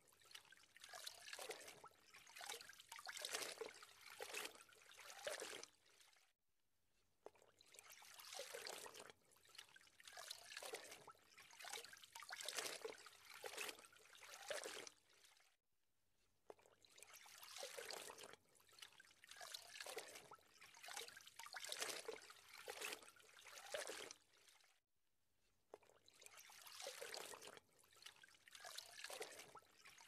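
Faint river water trickling and lapping in gentle, uneven surges. A brief gap comes about every nine seconds, as if the same stretch of sound repeats.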